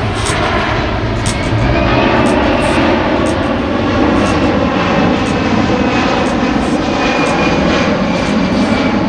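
Fixed-wing airplane engine running loud and steady, with tones that slowly rise and fall in pitch as it flies.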